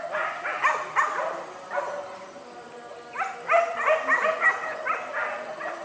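Hunting-dog yelps and whines: short, high-pitched cries, a few in the first two seconds, then a quick run of them from about three to five seconds in.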